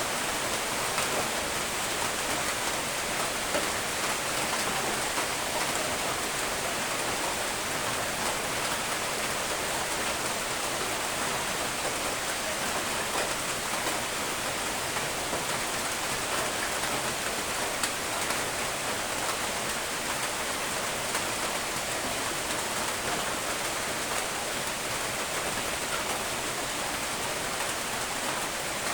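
Steady, constant rain falling, a dense hiss of drops with fine patter throughout.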